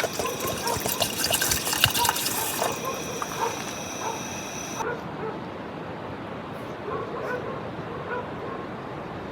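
Water splashing with small clicks and knocks, as rice is rinsed in a pot, then an abrupt change to a quieter night background with faint dogs barking in the distance.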